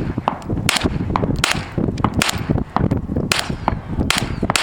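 Gunshots fired in a rapid string, about two shots a second, each a sharp crack.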